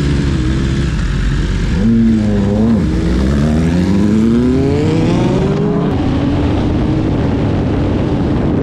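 Sport motorcycle engine revving: a quick blip about two seconds in, then a long rising rev that peaks near six seconds and settles to a steadier note.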